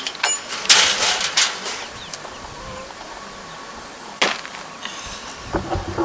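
A few sharp knocks and a rattling clatter about a second in, and one more knock after about four seconds, over a steady hiss.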